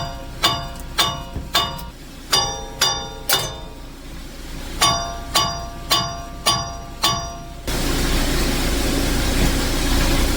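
Hammer blows on a seized front wheel hub assembly, each strike ringing like struck steel, in quick runs of about two to three a second with a short pause between runs: the hub is stuck and being knocked loose. Near the end the blows stop suddenly and a steady hiss takes over.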